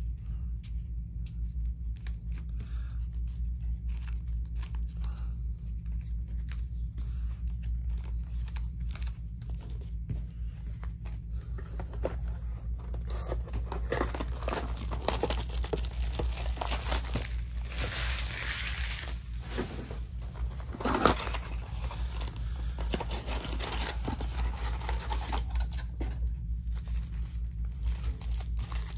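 Trading cards being handled with faint light clicks, then, from about halfway, louder crinkling and tearing of a blaster box's plastic wrap and cardboard as the box is opened and its foil packs pulled out, with one sharp click about three-quarters of the way in. A steady low hum runs underneath.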